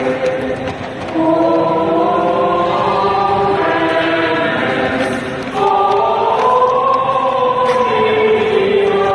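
A choir singing a slow hymn in long held notes, the chord shifting a few times.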